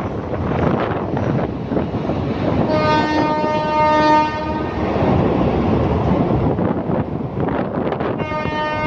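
Philippine National Railways train running past with a steady rumble of the wheels on the rails. Its horn sounds a long blast about three seconds in, and again near the end.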